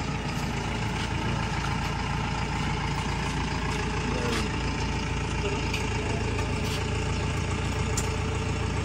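Ambulance engine idling steadily, with a few faint clicks over it.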